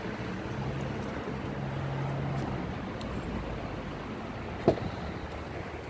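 Vehicle traffic noise: a low steady engine hum that fades out after about two and a half seconds. A single sharp click comes near the end.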